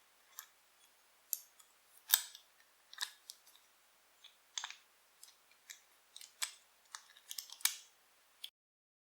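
Scattered sharp metallic clicks and clinks from the old Soviet iron padlock being worked, its parts moving, to show it still locks after picking. The loudest click comes about two seconds in.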